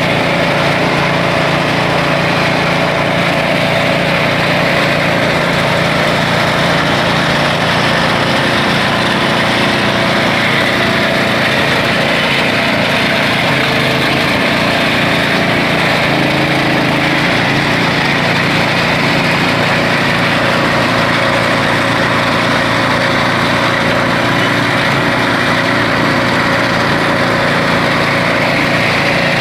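Small engine of a simple well-drilling rig running steadily at constant speed.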